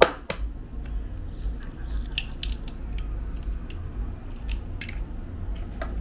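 Eggs being cracked against the rim of a mixing bowl: sharp cracks and shell clicks, the loudest right at the start, then smaller pairs of clicks about two seconds in and again near the middle.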